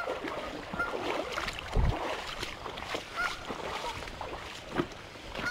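Creek water sloshing and splashing around a wading angler, with a few short honks from agitated geese. There is a low thump about two seconds in.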